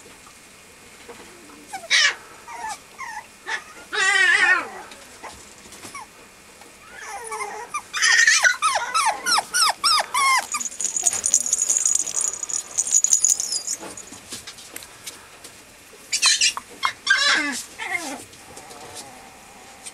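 Mame shiba puppy whining and yelping in bouts of high, wavering calls: a long wavering whine about four seconds in, a fast run of short yelps from about eight to ten seconds, and a few more yelps near the end.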